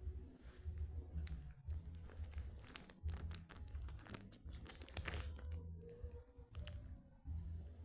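Close-up chewing and crunching of a hard candy, with repeated bites and sharp crunches throughout.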